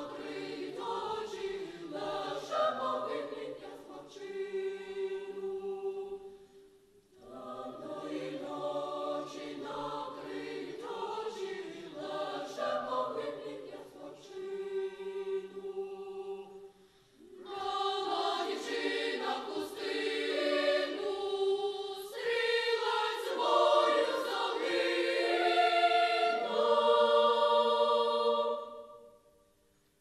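Children's choir singing in phrases, with short breaks about 7 and 17 seconds in. After the second break the singing grows louder and fuller, ending on a held chord that stops just before the end.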